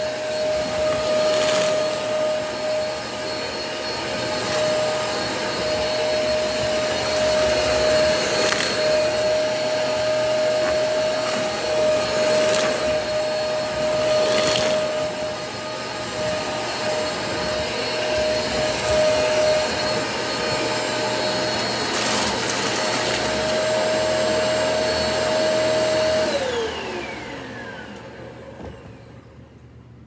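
Eureka AirSpeed One bagless upright vacuum running on a rug, a steady whine with scattered sharp clicks as cat litter and dry cat food are sucked up. About 26 seconds in it is switched off and the motor winds down, its whine falling in pitch.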